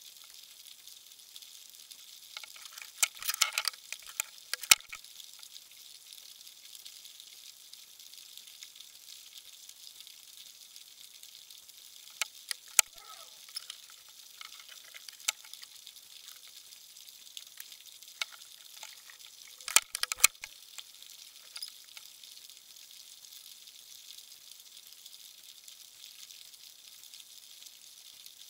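Underwater ambience: a steady faint high hiss with scattered sharp clicks and crackles, bunched a few seconds in, around the middle and about twenty seconds in.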